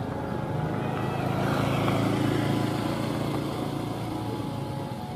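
A road vehicle's engine passing close by, its hum swelling in the middle and then fading away.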